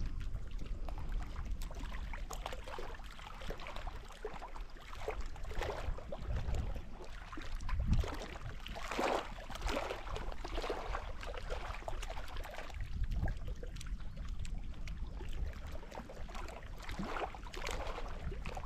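Wind buffeting the microphone with a steady low rumble, and small wind-driven waves lapping on a rocky lakeshore. The splashing is strongest around the middle and again near the end.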